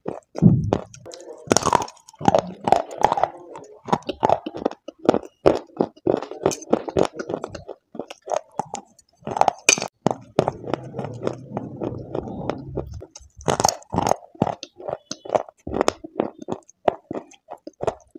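Dry white clay sticks being bitten and chewed close to the microphone: a dense, irregular run of sharp crunches and crackles, with a few louder bites about one and a half seconds in, near ten seconds and near fourteen seconds.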